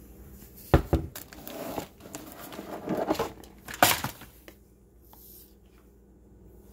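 Handling noise on a countertop: a sharp knock about a second in, rustling and crinkling, then a second sharp knock near four seconds, before it goes quiet.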